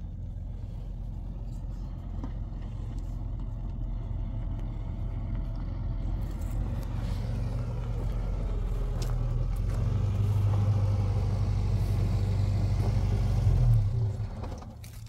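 A motor vehicle's engine running as it draws closer, growing steadily louder, then falling away sharply about fourteen seconds in.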